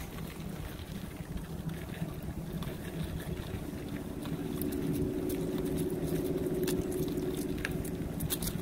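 Bicycle rolling along a paved trail: steady tyre and wind rumble, with a hum that grows louder about halfway through and scattered light clicks and crackles, such as tyres passing over dry leaves and the bike rattling.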